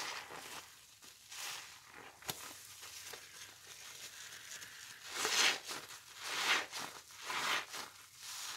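Wet, sudsy sponges loaded with pine cleaner being squeezed by hand, in a series of squelching squeezes. Three stronger squeezes come close together in the second half.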